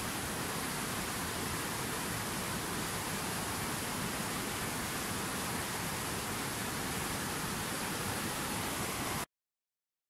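Rushing white-water river rapids: a steady, even rush of water that cuts off suddenly to silence about nine seconds in.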